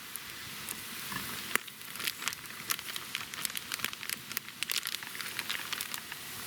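Campfire crackling, with many sharp irregular pops and snaps that grow denser from about a second and a half in.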